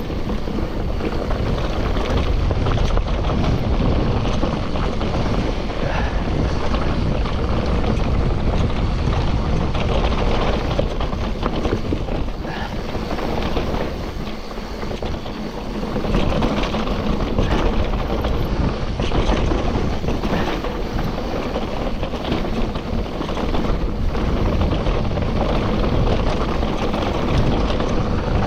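Mountain bike descending a dirt trail: wind rushing over the microphone with tyre noise and the bike rattling over rough ground. It eases for a couple of seconds about halfway through.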